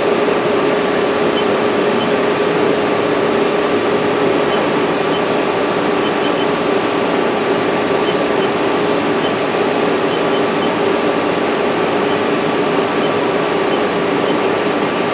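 Haas SL-20T CNC lathe powered up and running, a steady machine hum with a constant mid-pitched tone over a noisy whir and no distinct clunks.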